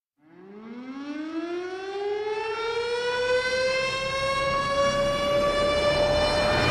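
A siren winding up: one long tone that starts low, rises slowly in pitch and grows louder over several seconds, levelling off near the end.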